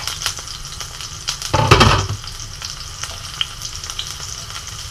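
Onion and garlic sizzling in hot oil in a cast iron skillet, with a wooden spoon clicking and scraping against the pan as they are stirred. A louder thump comes about a second and a half in.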